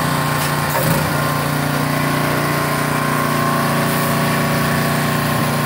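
Airless paint sprayer running steadily: a constant machine hum with a thin higher tone above it.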